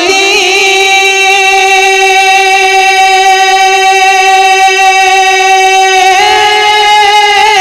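A solo singer of a devotional Urdu kalam holding one long, steady note without words, the pitch stepping slightly higher about six seconds in.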